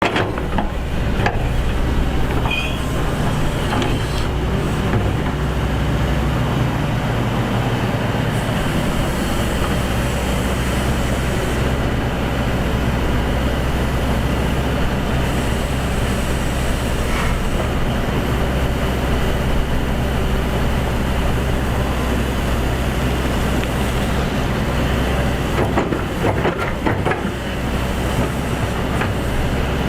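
Excavator's diesel engine running steadily at a low drone, with a few short metallic clanks scattered through.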